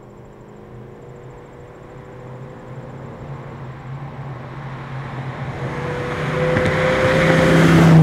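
A car approaching along the road, its engine note and tyre noise growing steadily louder until it reaches its loudest and passes close by at the very end, the pitch starting to drop as it goes by.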